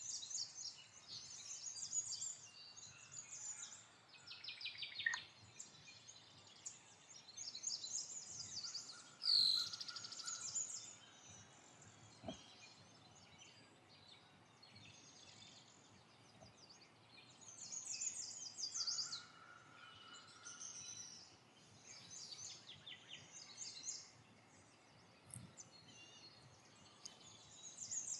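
Faint birds chirping and trilling in the background, short high calls every second or so, with one faint click about twelve seconds in.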